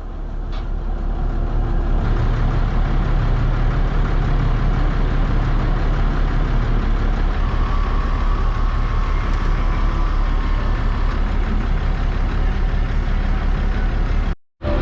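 Truck engine running steadily, fading in over the first couple of seconds.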